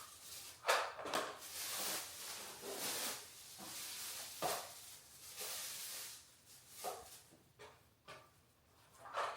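A few faint, irregular rustling swishes and soft clicks, the sharpest just under a second in and near the end.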